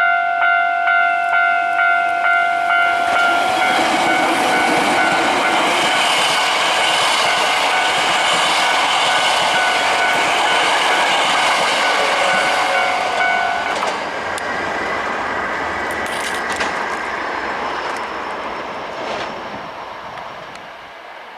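Level-crossing warning bell ringing at about two strikes a second while a Hankyu Kyoto Line electric train runs through the crossing. The loud rush of wheels on rail sets in a few seconds in, and the bell stops about 14 seconds in. The train noise then fades away, with a few sharp clicks from the wheels over the rails.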